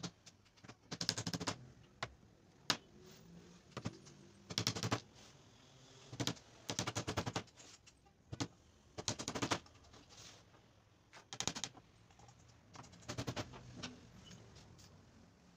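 Short runs of rapid, evenly spaced clicking, each about half a second long, repeating every second or two, with a faint low hum between them.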